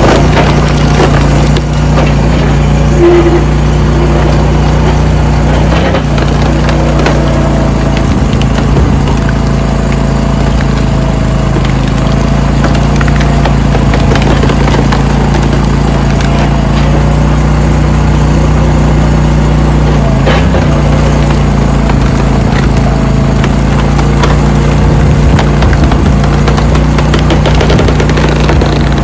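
Gas engine of a hydraulic log splitter with a regen valve, running steadily at working speed as the ram pushes a large log through the splitting wedge.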